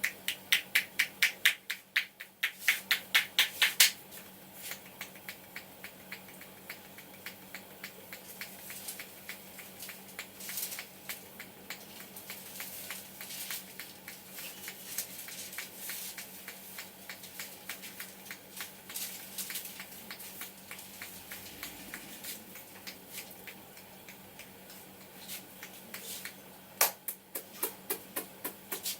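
Hands slapping and tapping in quick, even rhythm during a head massage, about four or five strikes a second. The strikes are loud and sharp for the first few seconds, softer through the middle, and loud again near the end.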